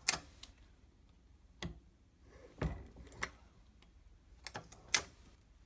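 Reloading press sizing and decapping a 9mm Luger brass case in a carbide sizing die: about six separate sharp clicks and metallic knocks, the loudest at the start and near the end, as the case goes into the die and the die's spring pushes it back out.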